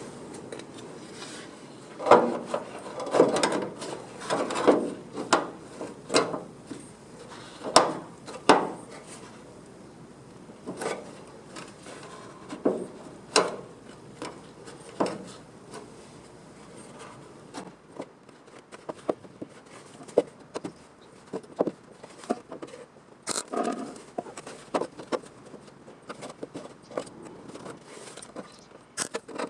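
Irregular knocks, taps and rubbing from hands and tools at work, with no steady machine running. The strongest knocks come in the first third, followed by lighter, sharper clicks and scraping.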